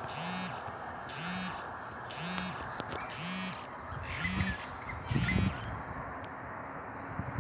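An animal calling in a steady rhythm about once a second, each call a rasping high burst over a low rising-and-falling tone, five times before it stops about two-thirds of the way through. A low bump follows soon after.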